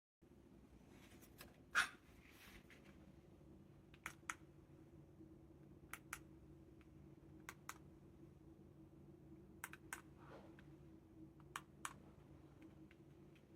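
Faint, sharp clicks, mostly in quick pairs about every two seconds, like keys or buttons being pressed, over a low steady hum.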